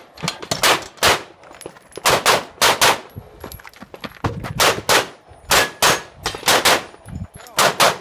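Handgun shots fired in rapid pairs and short strings, with brief pauses between groups.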